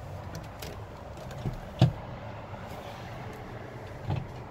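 Someone climbing up into a Peterbilt 389 truck cab and settling into the seat: a few knocks and creaks, the loudest knock about two seconds in and another near the end, over a steady low hum.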